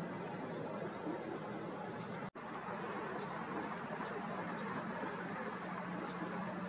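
Outdoor ambience of insects: a faint chirp repeating about every half second, broken by a sudden cut about two seconds in, then a steady high-pitched insect trill over a low background hum.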